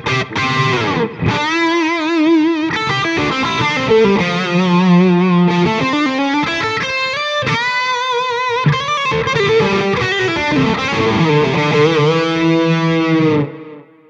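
Overdriven electric guitar lead played through a Line 6 HX Effects unit into a BluGuitar Amp 1 on an 80s lead preset. It plays sustained single notes with wide vibrato and bends, plus a quick run in the middle, and cuts off shortly before the end.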